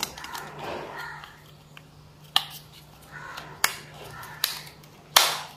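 Hard plastic cover of a Nokia Lumia phone being pressed onto the handset, snapping into place in four sharp clicks spread over about three seconds, the last the loudest.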